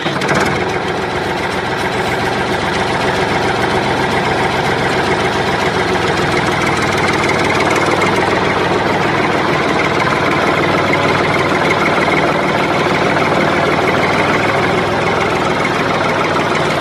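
Tractor engine idling steadily, building slightly over the first couple of seconds and then holding level.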